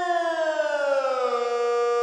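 Warning siren wail falling in pitch for about a second and a half, then holding a steady tone.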